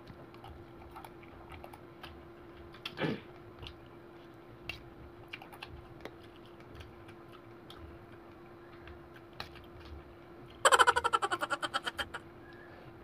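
A person eating quietly: scattered soft clicks of utensils and chewing over a steady hum. There is a short sound falling in pitch about three seconds in. Near the end comes a loud, rapid rattle lasting about a second and a half that fades out.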